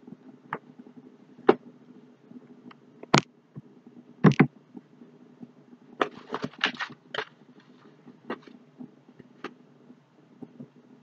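Handling of items and packaging while unpacking a box: scattered taps and knocks, the loudest about three and four seconds in, and a run of rustling between about six and seven seconds in, over a steady low hum.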